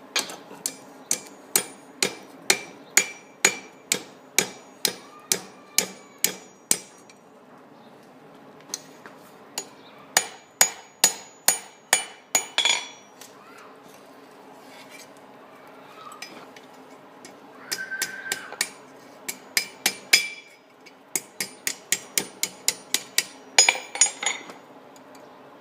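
Blacksmith's hammer striking hot steel on an anvil in runs of steady blows, about two a second, each with a bright metallic ring; the runs stop and start several times, with quicker blows near the end. Tapering a leaf from 12 mm round rod.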